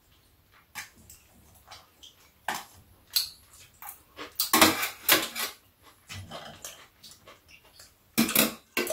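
Eating at a table: chewing and lip smacking, with scattered clicks of chopsticks against the dishes. The sounds come in short irregular clusters, loudest a little before halfway and again near the end.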